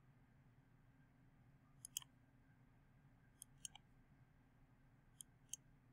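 Faint computer mouse clicks, about seven in small groups of two or three, over near-silent room tone.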